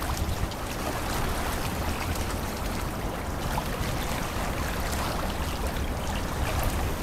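Sumida River water lapping and trickling steadily against the embankment, with small splashes.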